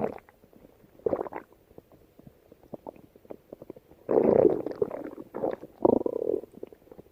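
Stomach growling and gurgling: a short gurgle about a second in, then a long, louder rumble about four seconds in followed by two shorter growls, with faint gurgling in between.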